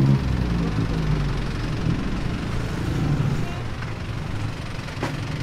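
Street traffic: motor vehicle engines running close by, with a steady low rumble that is loudest at the start, mixed with people's voices.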